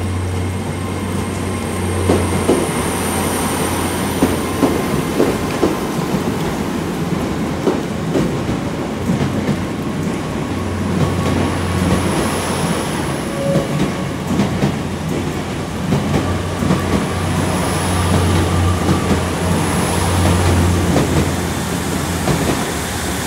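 Class 150 Sprinter diesel multiple unit moving slowly through the station: a steady low engine drone that fades for a few seconds midway, under repeated clicks and knocks of the wheels over rail joints and points, with faint high wheel squeal coming and going.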